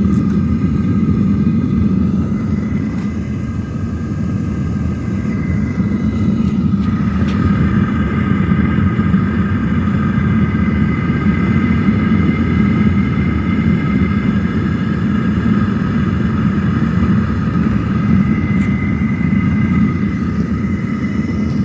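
Propane-fired aluminium melting furnace being run in: the burner's steady rumbling roar, with a faint steady high tone over it.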